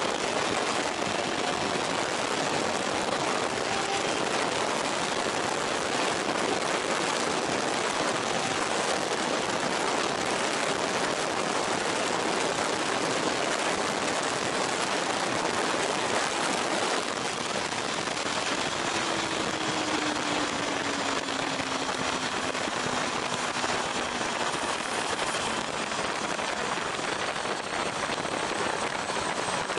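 Heavy wind noise on the microphone of a 1989 Honda CB1 (CB400F) ridden at speed, with its 400 cc inline-four engine running beneath the rush. Past the middle the level dips a little and a faint tone falls slowly in pitch.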